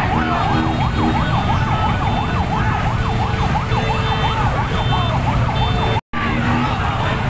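A siren in a fast yelp, rising and falling several times a second, over a steady traffic rumble, with short horn toots near the start and again near the end. The sound cuts out for an instant about six seconds in.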